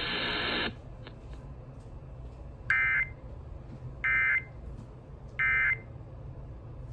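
Three short EAS end-of-message data bursts, the SAME "NNNN" tones. Each is a raspy electronic burst about half a second long, and they come about a second and a half apart. They signal the end of the alert message. A brief hiss comes before them, near the start.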